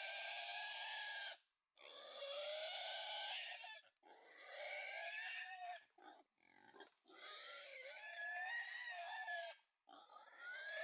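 Wild boar squealing in long, wavering, high-pitched cries of a couple of seconds each, four in a row. A few short low grunts come midway.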